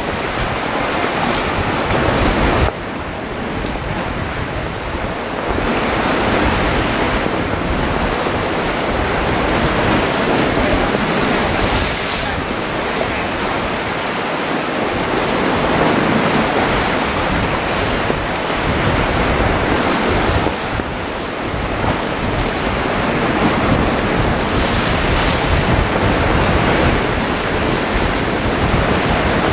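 Heavy surf breaking and washing over a rocky shore under a strong wind that buffets the microphone; the noise swells and eases with the waves.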